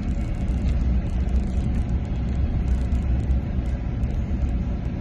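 Steady low rumble with no breaks or changes.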